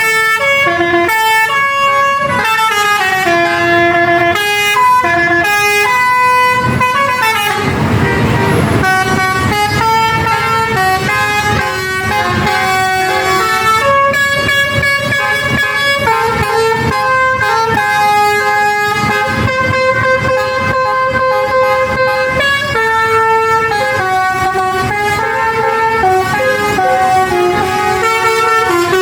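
Telolet basuri multi-trumpet musical horn playing a tune of stepped notes, several tones sounding together, without a break. A brief rushing hiss about eight seconds in.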